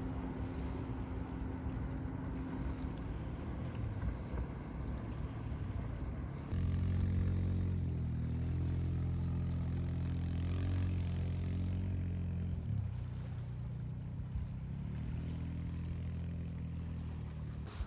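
Steady low engine drone of a moving vehicle, with a rushing haze of wind or travel noise over it. It jumps louder about six and a half seconds in and changes pitch again near twelve and a half seconds.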